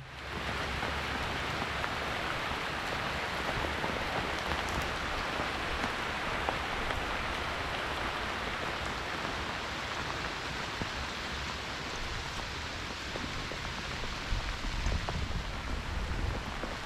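Heavy rain falling steadily, a dense even patter.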